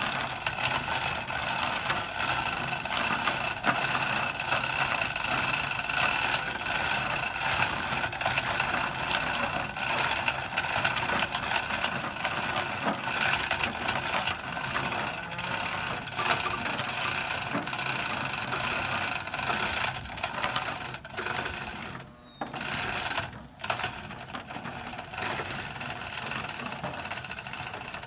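Manual chain hoist being hauled hand over hand to lift a heavy timber beam: the hand chain rattles through the block and the hoist clicks fast and steadily as it ratchets. The clicking stops twice, briefly, about three quarters of the way through.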